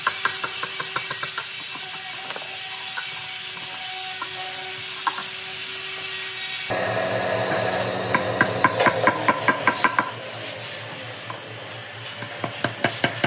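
Wood being worked with tools: a steady scraping texture dotted with sharp ticks and taps. About seven seconds in it changes abruptly to a steady machine hum with quick, evenly spaced taps.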